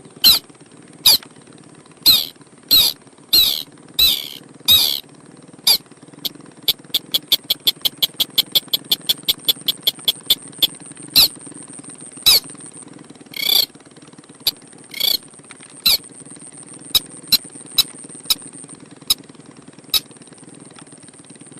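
Repeated loud calls of a sintar sawah crake used as a bird-luring sound: sharp sweeping calls about one every second, breaking about six seconds in into a fast run of short notes, about five a second, that lasts some five seconds before the spaced calls return. A steady high whine and a low hum run underneath.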